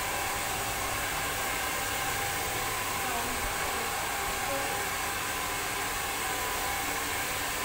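Handheld hair dryer blowing steadily on a customer's hair: an even rush of air with a thin steady whine.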